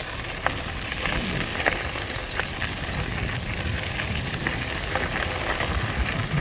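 Mountain bike tyres rolling over a loose gravel road: a steady crackling hiss with scattered small ticks from stones under the tyres.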